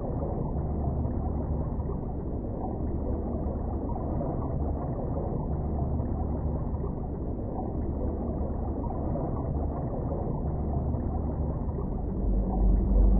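Low, muffled rumbling background ambience with no clear events. About a second before the end a steady low tone comes in and the sound grows louder.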